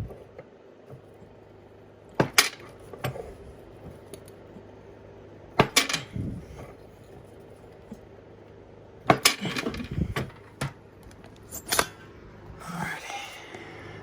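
Sharp metallic clacks and clinks in four short clusters as bars of 60/40 tin-lead solder are cut into chunks on a shear and the chunks drop into a metal pot.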